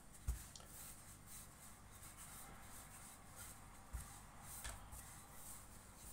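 Faint rubbing of a wooden rolling pin rolling out soft bread dough on a floured countertop, with three soft thumps of the pin, the loudest just after the start and two more near the end.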